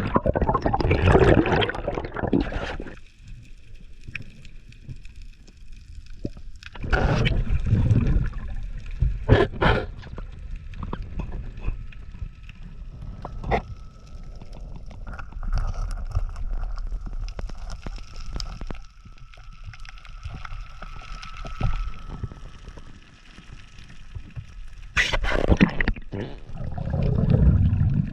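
Water sloshing and gurgling around a diver's head-mounted underwater camera, coming in loud rushing bursts at the start, around seven to ten seconds in, and near the end. A faint steady high tone holds through the middle.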